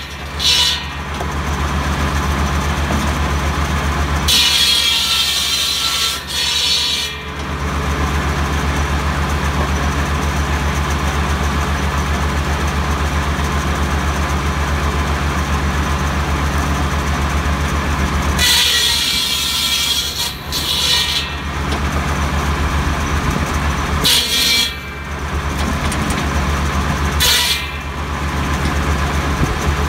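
Tractor-mounted buzz saw (cordwood saw) spinning with a steady drone from the Kubota B7100 tractor's diesel engine, its circular blade cutting through tree branches five times with a high-pitched whine: a brief cut at the start, a cut of about three seconds some four seconds in, another of over two seconds about eighteen seconds in, and two short cuts near the end.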